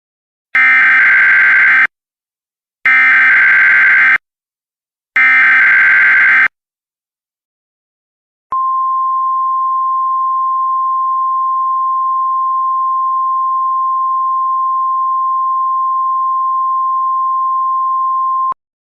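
Emergency Alert System test signal. It opens with three identical harsh warbling data bursts, the SAME digital header, each about a second and a half long. After a short silence comes one steady attention tone near 1 kHz, held for about ten seconds and cut off abruptly.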